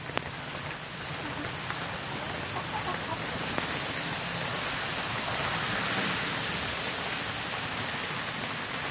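Steady rain falling: an even hiss with a few scattered drop ticks, swelling a little toward the middle.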